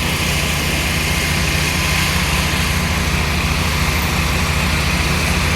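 An engine running steadily at constant speed, with a steady hiss over it.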